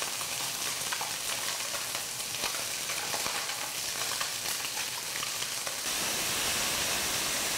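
Chicken wings sizzling in a dry nonstick frying pan with no oil, the fat rendering out of the skin, with a steady hiss and scattered small crackles. The sizzle grows a little louder about six seconds in.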